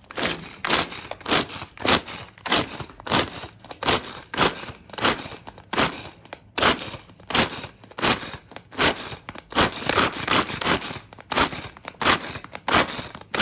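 Manual kitchen chopper cutting onions: a steady run of crunching strokes, about one and a half a second, as the blades cut through the onion.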